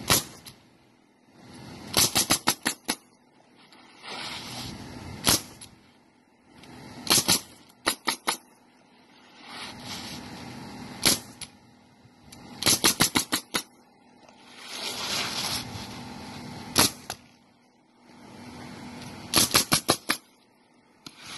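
Pneumatic roofing nailer driving nails through asphalt shingles: sharp shots fired in quick volleys of up to about six, with single shots in between. Softer scraping swells rise in the pauses between volleys.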